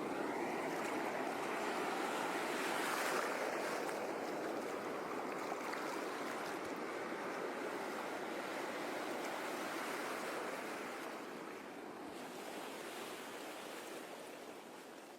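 Sea waves washing onto a shore, a steady surf that swells about three seconds in and fades away over the last few seconds.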